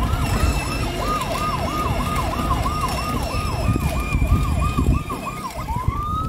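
Electronic police-siren sound effect from a kids' 12V police-style ride-on car's speaker: a fast yelp repeating about three times a second, which near the end changes to a slow rising wail.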